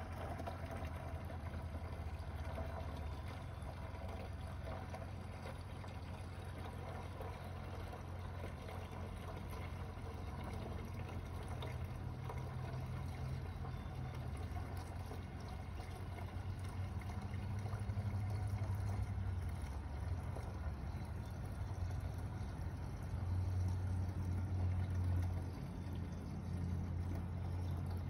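Water being poured slowly and steadily from a tilted bucket into another bucket: the clear water decanted off the top of paint wastewater, leaving the settled paint sludge behind. It gets a little louder about two-thirds of the way through.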